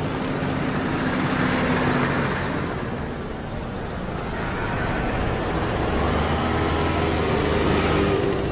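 Street traffic: motor vehicles passing close by, the sound swelling twice, about two seconds in and again near the end.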